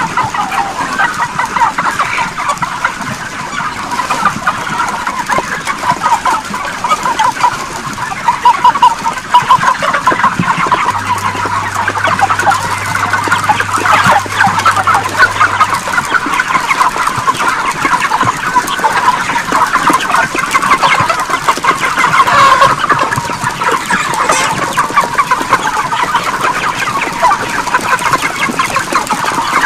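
A large flock of broiler chickens crowded in a shed, many birds clucking and calling at once in a dense, unbroken chatter.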